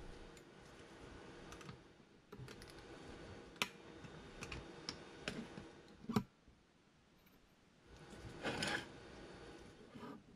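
Light metal clicks and taps, irregular, from a small tool working the little springs into a Chinese ATV clutch assembly. A longer scraping rub comes about eight seconds in.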